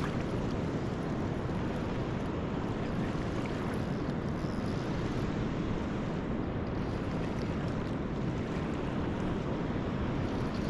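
Steady wind rumbling on the microphone, mixed with the wash of surf.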